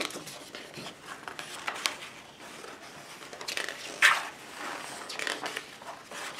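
Pages of a large softcover book being turned by hand, several paper swishes and rustles, the sharpest flip about four seconds in.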